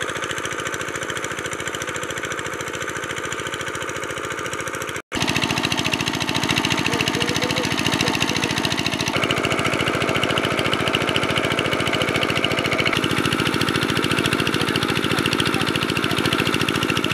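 Small diesel engine running steadily and driving a water pump, with a fast even beat, as it pumps water out of a pond through a pipe to drain it. The sound cuts out briefly about five seconds in, then the engine comes back a little louder.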